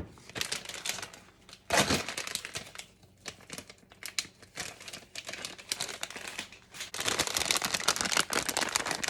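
Plastic packaging crinkling and rustling in spurts as shredded cheese is taken out of it by hand, with a single knock about two seconds in; the crinkling is thickest near the end.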